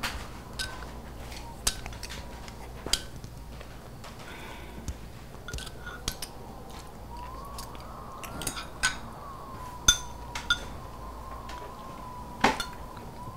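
Chopsticks and spoons clinking against ceramic bowls and plates during a meal: scattered, irregular light clinks, the sharpest two near the end.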